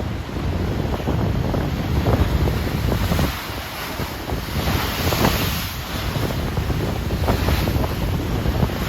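Choppy Atlantic Ocean waves running into each other and breaking, a continuous rush of water that swells and eases every couple of seconds. Wind buffets the microphone with a low rumble.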